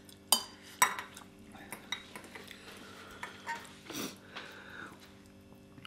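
Metal forks clinking and scraping against a glass bowl and a ceramic bowl while twirling noodles: two sharp clinks within the first second, then lighter taps and scrapes.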